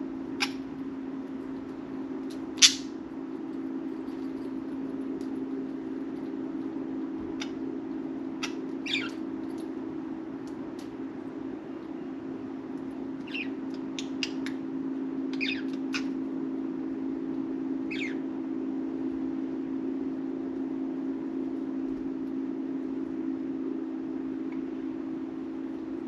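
Pet budgerigars giving scattered short, sharp chirps, the loudest about three seconds in and a quick cluster around the middle, over a steady low hum.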